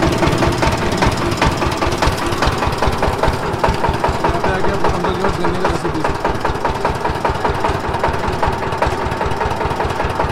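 Powered sugarcane juice machine running, its steel rollers crushing cane stalks. A rapid, even knocking from its drive runs under a steady mechanical hum.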